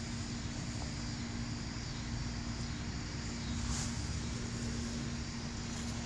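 Steady outdoor background noise with a low, even mechanical hum, like a distant engine or machine running.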